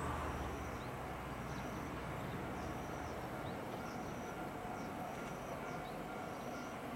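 Rural outdoor ambience: a steady background hush and low hum, with small birds chirping, a short high call repeating about once a second.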